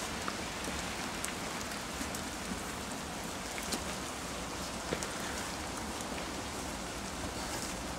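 Steady hiss and patter of wet snow coming down, with scattered light ticks of flakes and drips landing.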